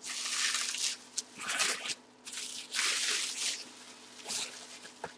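Bubble wrap crinkling and rustling as it is pulled and unwrapped from around a full-size football helmet, in several irregular bursts.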